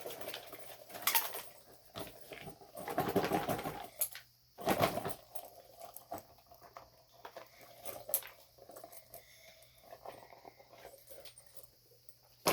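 Handling noise from fidget toys being picked up and moved about: irregular rustles, knocks and scrapes, loudest about a second in, around three to four seconds in, and again around five seconds in.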